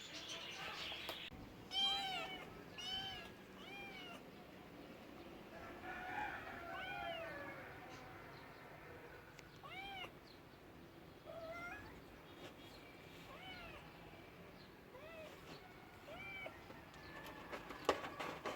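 A cat meowing repeatedly: short, high-pitched calls that rise and fall, three in quick succession a couple of seconds in, then others spaced a few seconds apart. A sharp knock near the end.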